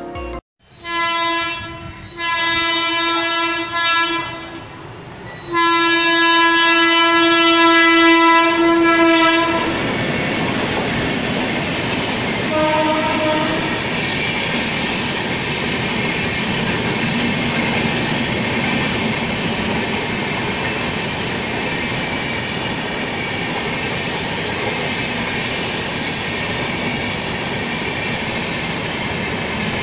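An electric locomotive horn, most likely a WAP-7's, sounds a series of blasts: short ones about one and two seconds in, a brief toot near four seconds, a long blast of about four seconds, and a last short toot about twelve seconds in. Under and after the horn comes the steady rumble and clickety-clack of an LHB passenger rake running through the station without stopping.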